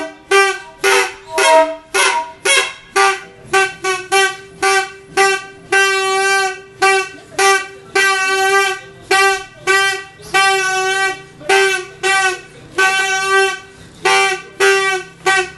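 Plastic toy fan trumpet blown over and over in a long series of loud toots on one steady pitch, about two a second, with a few blasts held for a second or more.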